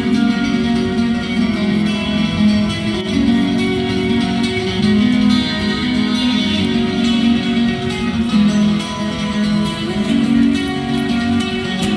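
Live acoustic guitar music, strummed and picked without a break.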